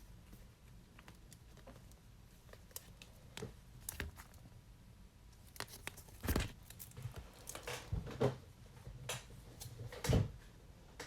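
Trading cards and their plastic packaging being handled and sorted into piles: scattered rustling and crinkling with light taps, a few sharper ones in the second half.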